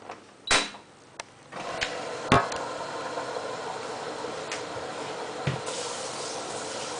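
AEG 74800 front-loading washing machine: the programme dial clicks as it is turned. About a second and a half in, a steady hiss and hum starts as the machine begins its customer-service test cycle, with a sharp click just after.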